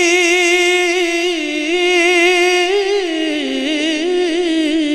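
A man's voice singing a naat unaccompanied, drawing out one long ornamented note with a wavering, trembling pitch. About three seconds in, the note slides down to a lower pitch and carries on.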